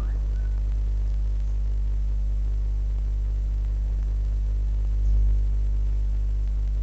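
Steady low electrical mains hum with a faint hiss, swelling briefly about five seconds in.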